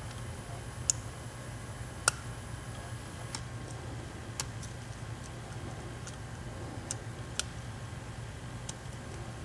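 Metal lock picks clicking irregularly inside a Pacific Lock 100A five-pin padlock as the pins are worked, about seven sharp ticks, the loudest two in the first couple of seconds, over a steady low hum.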